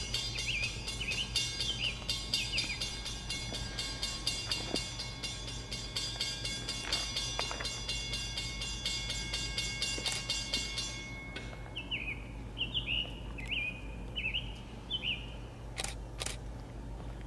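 EMD F40PH-2 diesel locomotive approaching at a distance, a steady low engine drone, with a bird repeating short falling chirps over it. A fast, even high ticking fades out about eleven seconds in, and two sharp clicks come near the end.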